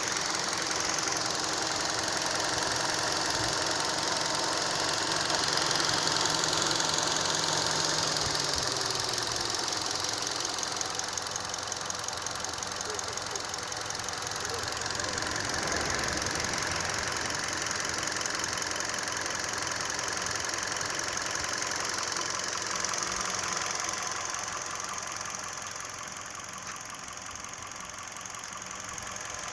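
Hyundai Solaris 2012 1.6-litre four-cylinder petrol engine, fully warmed up, running steadily with a knock from inside the engine, which the owner takes for piston slap.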